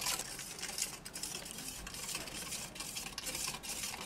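Spoon stirring agar strands in water in a stainless steel pot, scraping the metal in repeated strokes, a few a second.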